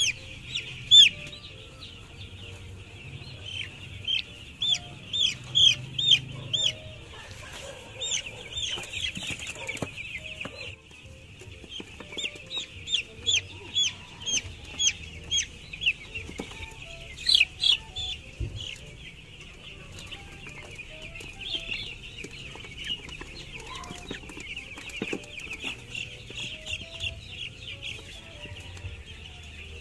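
A brood of week-old chicks peeping, with many short, high peeps overlapping and coming in quick runs.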